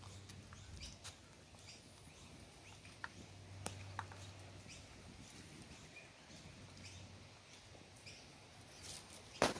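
Faint outdoor ambience with scattered small clicks, light scuffling and a few brief chirps from seven-week-old Doberman puppies moving about on concrete. There is one sharp, loud knock near the end.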